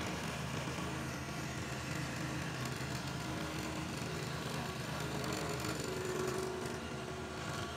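Electric scroll saw running steadily, its fine reciprocating blade cutting a curved line through a wooden board.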